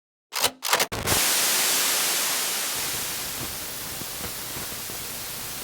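Silence, then about a third of a second in three quick crackles of static, followed by a steady static hiss, strongest in the high end, that slowly fades.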